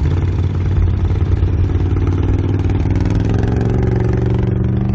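ATV engine running at low revs, steady at first, then rising slightly in pitch over the last couple of seconds.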